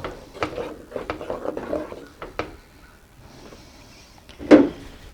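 Spoon stirring thick boiled icing in a saucepan, knocking and scraping against the pan in quick irregular strokes, then one loud short scrape about four and a half seconds in.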